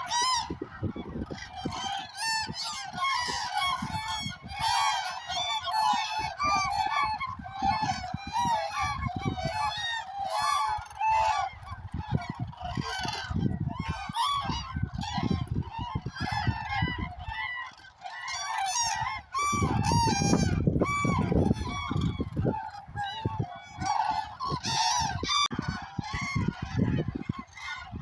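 A large flock of common cranes calling all at once: many overlapping trumpeting calls with no break.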